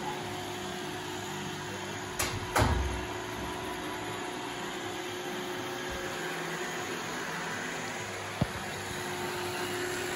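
iRobot Roomba 614 robot vacuum running while it cleans, a steady motor hum with a constant whine. Two knocks come about two seconds in and are the loudest sounds, and a single sharp click comes near the end.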